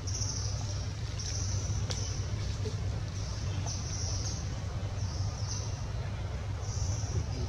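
Outdoor ambience: a steady low hum under short, high-pitched buzzing pulses that recur about every second or so, each fading away at its end.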